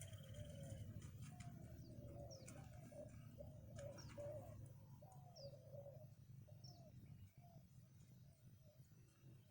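Faint dove cooing, repeated wavering low calls, with a few short higher bird chirps over a low steady hum.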